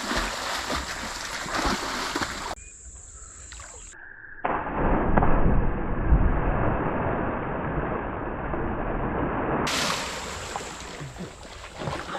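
Water splashing, then the sound goes suddenly muffled as a waterproof GoPro action camera plunges under the well water, with loud churning underwater for several seconds before it comes back up into open air near the end.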